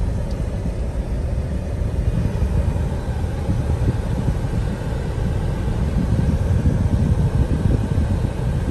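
Car moving at road speed, heard from inside the cabin: a steady low rumble of tyre and engine noise.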